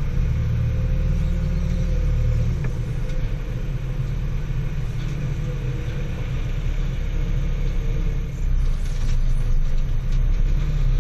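Diesel engine of a backhoe loader running steadily as the machine is driven and turned, heard from inside the cab.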